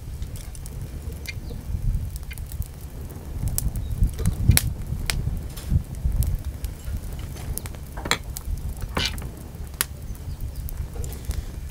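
Open wood fire under a pot of heating oil crackling, with scattered sharp pops over a steady low rumble.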